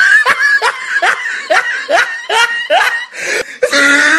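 Hearty laughter: a rapid run of short rising 'ha' bursts, about three a second, that runs into a longer drawn-out laugh near the end.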